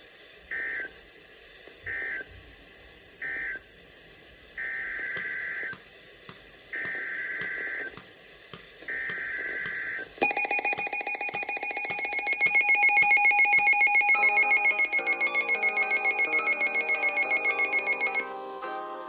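Weather radio data bursts: three short screechy bursts of two rapidly alternating tones, then three longer ones, marking the end of one alert and the header of the next. About ten seconds in a loud, rapidly pulsing alert tone sounds. Plucked-string music joins it a few seconds later and plays on after the tone stops.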